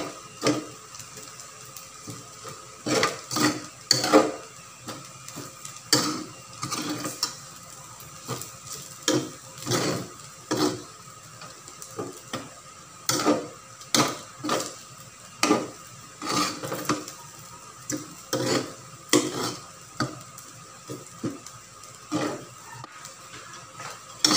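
Metal utensil scraping and clanking against a stainless steel wok while stirring and tossing fried rice, in irregular strokes about one every half second to a second.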